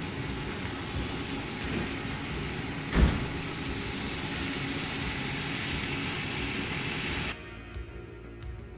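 Ham and a fried egg sizzling in a hot frying pan, with one knock about three seconds in. The sizzle cuts off suddenly near the end.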